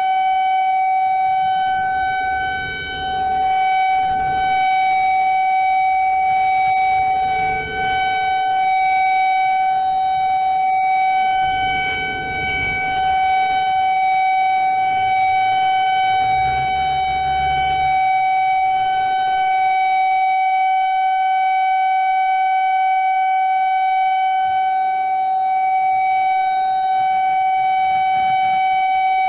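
Emergency alert tone held steady at one unchanging pitch, with a low rumble swelling underneath a few times.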